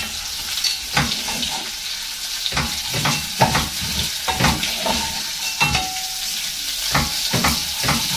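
Spaghetti browning in melted margarine in a hot pan: steady sizzling, with a wooden spoon knocking and scraping against the pan about twice a second as it is stirred.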